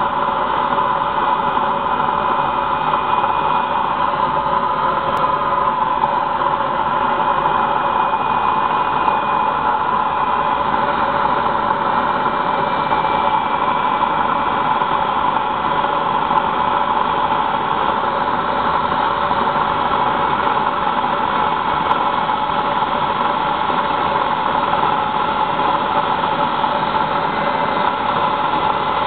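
Small jet turbine running steadily: an even, loud rushing roar with faint high tones above it.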